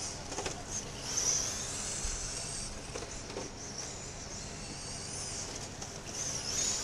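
Electric radio-controlled dirt oval late model cars running on the clay track: a high, wavering motor whine with tyre hiss, swelling as cars pass about a second in and again near the end.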